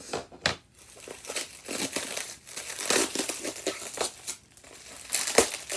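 Packaging crinkling and crackling in irregular bursts as a tightly wrapped package is worked open by hand, with one sharper crackle a little past five seconds in.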